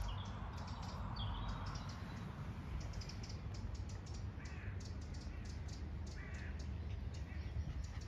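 Crow cawing: two short, harsh calls a little after halfway, over faint, irregular high ticking.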